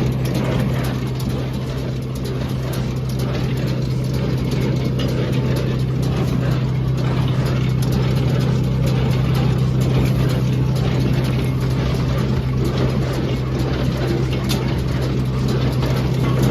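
Tractor engine running steadily, driving a John Deere small square baler through its PTO, a constant low drone that holds level throughout.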